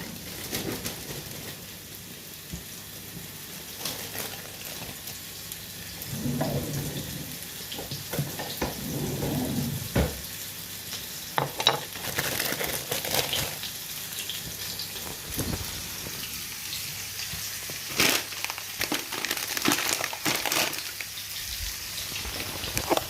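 Mushrooms sizzling as they fry in hot oil in a pan, a steady hiss broken by utensil clicks and knocks, the sharpest about ten, eighteen and twenty seconds in.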